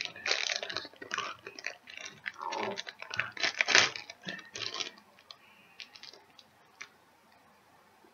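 Clear plastic bag crinkling and crackling as it is pulled off a plastic figure by hand, dense for about five seconds with the loudest crackle a little before four seconds in, then thinning to a few small crackles.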